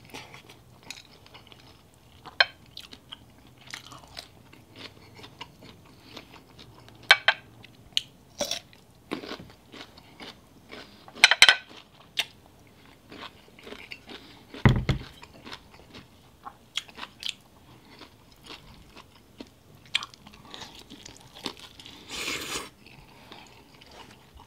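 Close-miked chewing and biting of grilled chicken thighs and boiled bamboo shoots, with irregular crisp crunches and mouth clicks, and a dull thump about fifteen seconds in.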